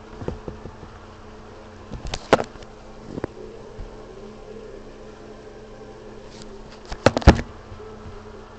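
A steady electrical buzzing hum, with short clusters of sharp clicks and knocks about two seconds in and again about seven seconds in.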